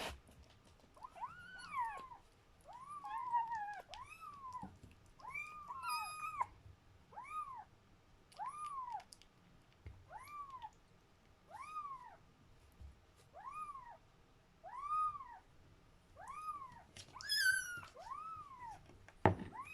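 Four-week-old kitten meowing over and over, a short high mew that rises and falls, about one every second to second and a half.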